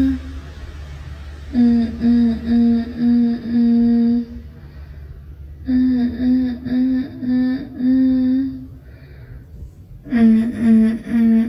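A person's voice humming short closed-mouth "mm" syllables in quick runs of four or five, with pauses of a second or two between runs.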